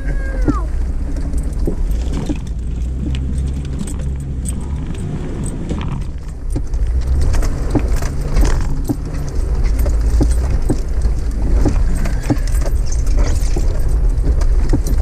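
Off-road 4x4 crawling over a rocky dirt trail: a steady low engine drone, with frequent rattles and clunks from the body and loose gear jolting over the rocks.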